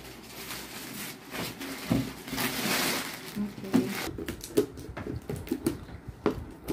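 Gift wrapping paper rustling and tearing off a cardboard box, then scissors snipping and scraping along packing tape on the box, with a run of short sharp clicks in the second half.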